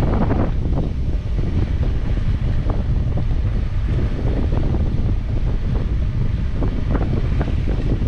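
Strong wind buffeting the microphone aboard a sailboat under way, a steady low rumble with irregular gusty thumps, over the rush of water.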